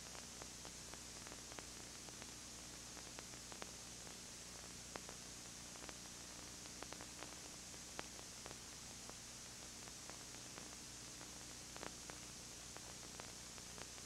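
Steady hiss with a low hum and scattered faint clicks and crackles: noise from a VHS tape transfer, with no distinct sound from the scene.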